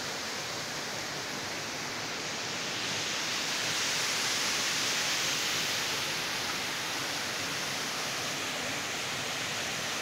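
Steady rush of falling and flowing water from a waterfall and its shallow rocky stream, a little louder from about three seconds in.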